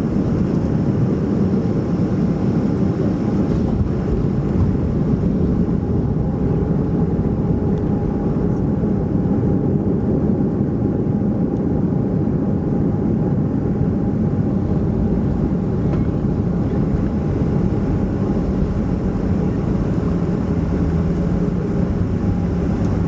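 Boeing 737-400 jet aircraft noise: a steady low rumble of engines and airflow with a faint hum over it, holding level and unchanging.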